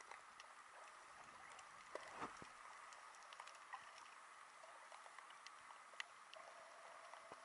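Near silence underwater: a faint steady hiss scattered with tiny clicks and crackles, and a brief soft swish about two seconds in.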